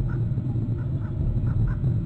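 A bird calling in short, faint notes, about three or four a second, over a steady low rumble.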